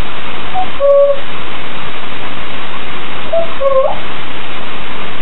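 African grey parrot whistling a few short notes of an improvised tune: one pair about a second in and a short phrase near four seconds in, ending on a rising note. A loud, steady hiss runs underneath.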